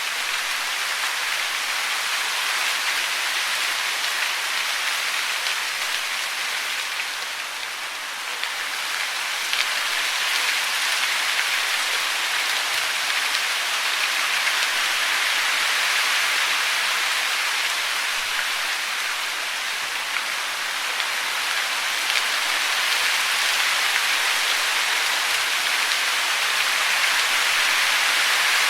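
Steady hiss of falling water, dipping briefly about eight seconds in and then running slightly louder.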